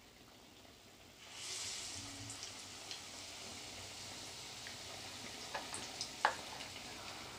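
Besan-battered potato chop dropped into hot mustard oil in a kadai: a sudden sizzle starts about a second in, then settles into steady frying, with a few light clicks near the end.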